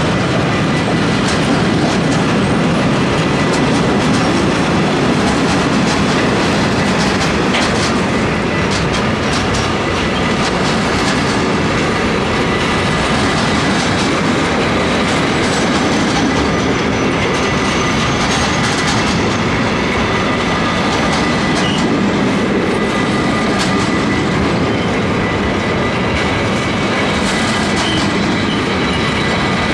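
Freight wagons, tank cars and covered sliding-wall wagons, rolling past at steady speed: a continuous rumble of steel wheels on rail with clicks of wheelsets over the rail joints and a thin, steady high whine.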